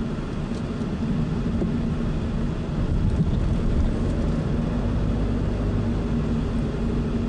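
Car engine and tyre noise heard from inside the cabin while driving slowly, a steady low hum and rumble that swells slightly about three seconds in.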